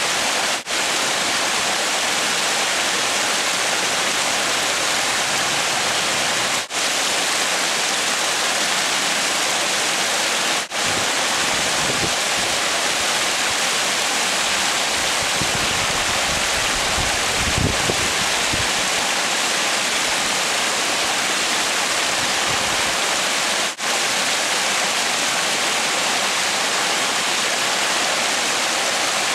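Creek water rushing over rocks by a small waterfall: a steady, loud rush. It breaks off for an instant four times, and a low rumble swells briefly about halfway through.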